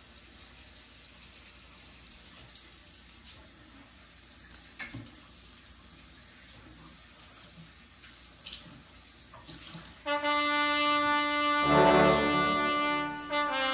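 Faint crackles of raw shrimp shells being peeled off by hand. Then background music with long held notes starts suddenly about ten seconds in and is by far the loudest sound.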